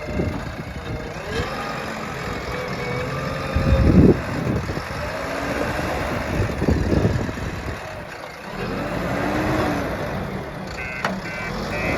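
JCB 3DX backhoe loader's diesel engine working under hydraulic load, its revs rising and falling as the arm digs. Near the end a reversing alarm starts beeping, about two to three beeps a second.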